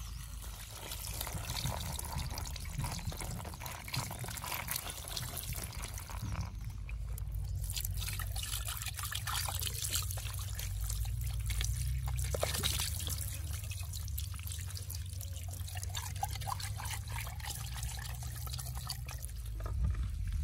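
Water trickling and dripping as hands rub and wash scaled fish in a woven bamboo basket, with many small clicks and scrapes throughout.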